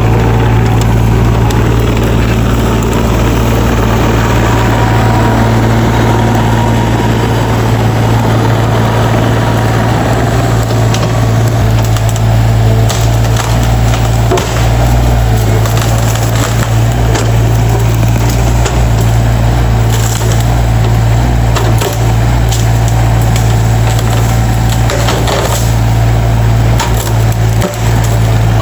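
Excavator's diesel engine running steadily under load while wood cracks and splinters in a long series of sharp snaps, thickest from about a third of the way in: a small tree being broken and pulled out by the excavator.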